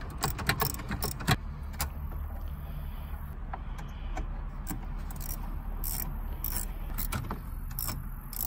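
Scattered clicks and small metal ticks of a screwdriver backing out the screws that hold a factory CD player in a truck dash, over a steady low hum.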